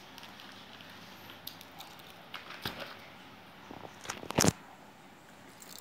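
Scattered crackles and clicks of a plastic-wrapped parcel being handled and opened with a Swiss Army knife, with a brief loud clatter of knocks a little past four seconds in.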